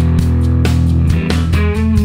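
Rock music with guitar and regular beats.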